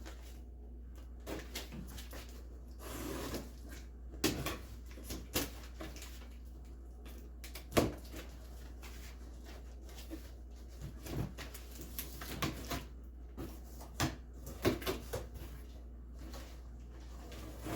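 Cardboard box and packaging being opened and handled: scattered knocks, scrapes and short rustles, the sharpest knock about eight seconds in, over a steady low hum.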